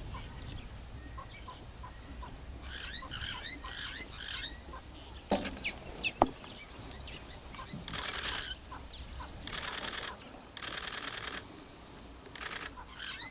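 Small birds chirping and calling, with two sharp clicks about five and six seconds in, and several bursts of rapid clicking between about eight and eleven seconds in.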